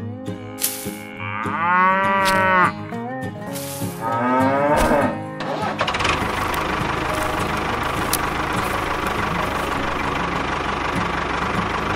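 A cow mooing twice, a long call about a second and a half in and a shorter one around four seconds, followed from about six seconds in by a steady tractor engine sound.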